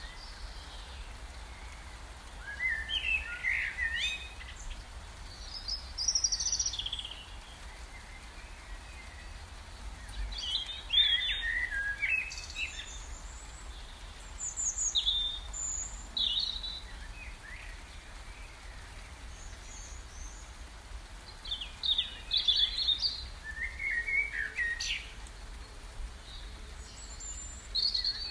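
Songbirds singing and chirping in short scattered phrases every few seconds, over a faint steady low rumble.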